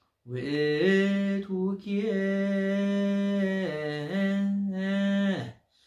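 A man chanting an Orthodox Tewahedo hymn unaccompanied, in one long melismatic phrase of held notes that steps up in pitch, dips and rises again.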